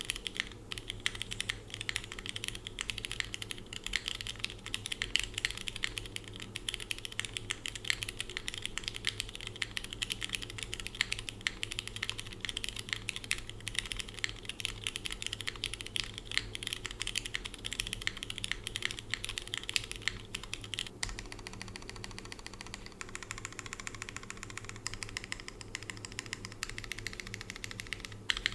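Fast, continuous typing on a mechanical keyboard with lubed and filmed Cherry MX Red linear switches in an aluminium plate, friction-mounted, with GMK Handarbeit R2 keycaps. About three quarters of the way through there is a brief break, and the key sound changes character.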